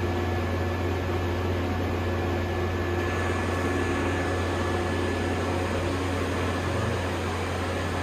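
Steady machine hum and fan-like whir of the equipment in a CT scanner room, a strong low hum with a few faint steady tones above it; the high hiss grows a little about three seconds in.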